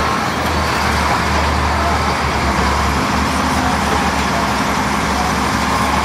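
Diesel engines of a crawler bulldozer and a wheel loader working under load, pushing and scooping rock and dirt: a loud, steady drone with a low engine hum that wavers.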